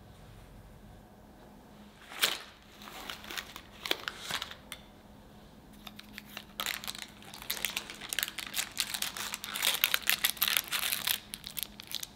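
Parchment baking paper crinkling and tearing as it is peeled away from a freshly baked sponge cake. There is a short spell of crackling, then a longer and denser one near the end.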